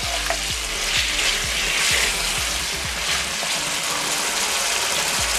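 Bone-in mutton pieces sizzling in ghee and ginger-garlic paste as they are stirred in the pan with a wooden spatula. Background music with a steady beat plays over it.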